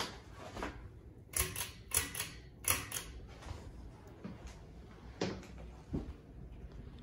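42-inch House Beautiful ceiling fan running on low with a faint steady hum, and a series of sharp, irregular clicks and ticks, most of them bunched together about a second and a half in, with two more later.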